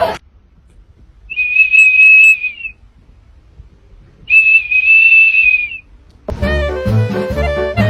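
Two long, steady, high whistled notes of about a second and a half each, with a pause between them. Music with brass instruments starts near the end.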